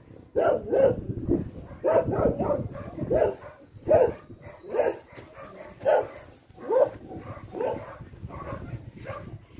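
A dog barking over and over, roughly once a second.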